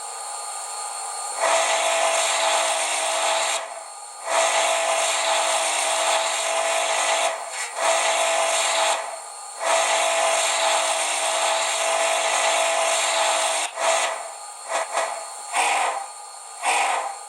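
Union Pacific three-chime Hancock steam whistle sound played by a TCS WOW Sound decoder through a model locomotive's small speaker, with a steady hiss underneath. It sounds four long blasts, then a quick run of short toots near the end.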